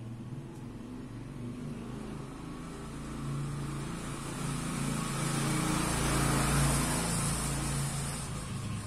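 A motor vehicle passing by: engine hum and road noise build up, peak about six to seven seconds in, then begin to fade.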